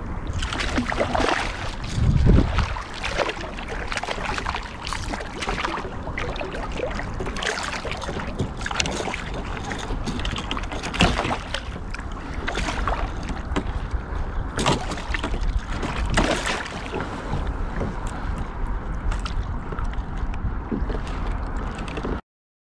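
Water splashing and knocking around a kayak while a hooked striped bass is fought, over wind rumbling on the microphone. The splashes and knocks come at irregular moments, with a heavy low thump about two seconds in, and the sound cuts off abruptly near the end.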